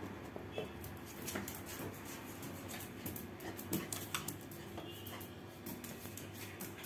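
Husky puppy scampering and pouncing, its paws and claws tapping and skittering on a tiled floor in a string of quick light clicks, with a louder knock about four seconds in.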